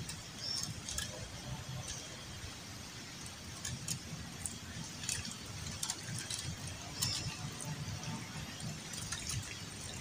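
Water sloshing in a handheld plastic container, with scattered light clicks and taps.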